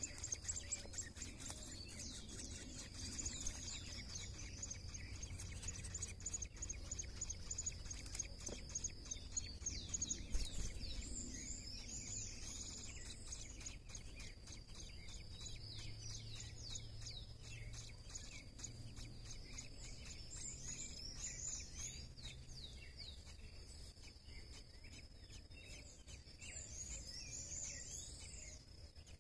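Birds chirping in clusters of short, high, quickly falling calls over a steady high-pitched tone.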